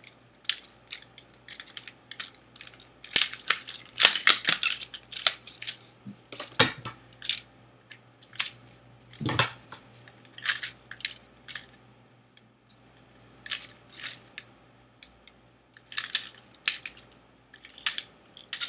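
Plastic clicks and rattles of a Transformers Prime Weaponizer Optimus Prime action figure being handled and turned over, with parts knocking and snapping against each other. There is a denser clatter about four seconds in and a single fuller knock about nine seconds in.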